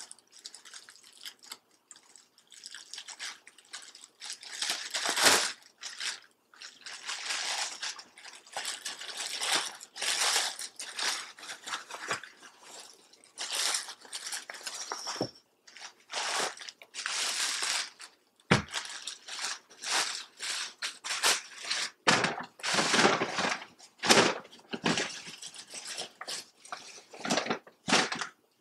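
Clear plastic bag of seafood boil crinkling and rustling in irregular bursts as its knotted top is handled and worked open, with a few sharp clicks among them.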